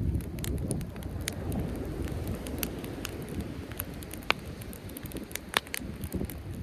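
Driftwood campfire crackling, with irregular sharp pops scattered throughout, the loudest about four and five and a half seconds in, over a steady low rush.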